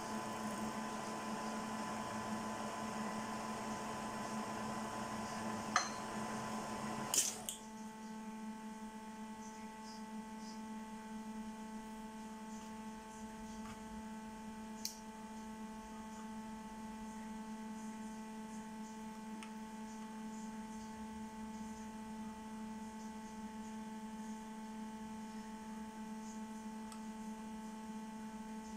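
Milling machine running with the end mill in an aluminium cut. About seven seconds in, a click and a clunk come and the running noise stops, leaving a steady electrical hum with a few faint ticks.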